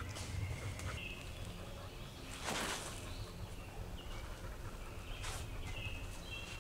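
Woodland outdoor ambience: a few short bird chirps over a low rumble of handling or wind on the microphone, with a brief rustling swish about two and a half seconds in.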